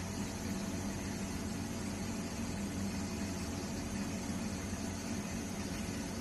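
Selective wave soldering machine running steadily: a low, even hum with a fan-like hiss over it.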